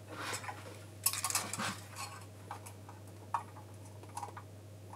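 Scattered light clicks and taps of a soldering iron and wires being handled against a potentiometer, jack socket and aluminium panel, with a small cluster of clicks about a second in. A low steady hum runs underneath.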